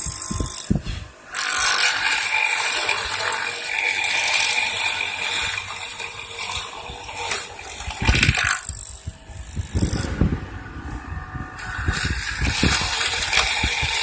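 Wood chisel mortising machine at work, its chisel cutting into the timber with uneven mechanical rattling and scraping.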